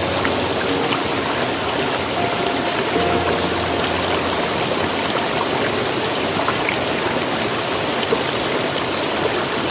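Valley stream flowing: a steady rush of water. Faint background music comes in briefly about two to four seconds in.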